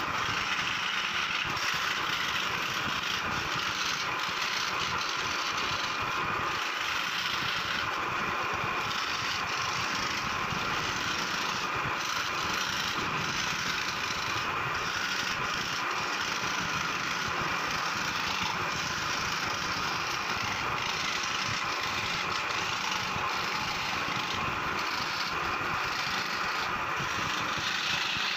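Electric scroll saw running steadily, its thin reciprocating blade cutting through a wooden plate as the piece is fed by hand.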